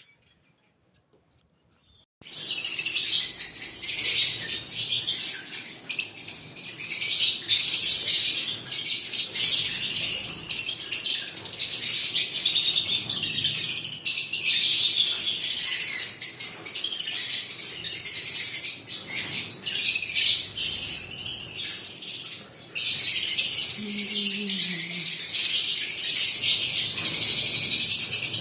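Pet lovebirds chirping continuously in a dense chorus of high, rapid calls, starting about two seconds in after near silence.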